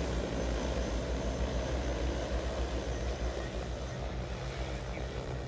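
DJI Agras T30 agricultural spraying drone's six rotors whirring with a steady low hum in flight. The sound fades slightly near the end as the drone moves away.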